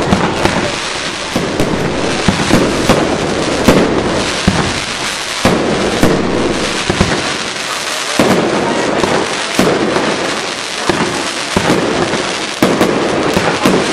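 Aerial fireworks bursting in quick succession: loud sharp bangs, irregular and several a second, over a continuous crackle and hiss.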